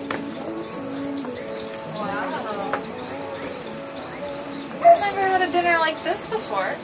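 Night insects chirring in a steady, high, continuous trill, with a few lower calls rising and falling in pitch.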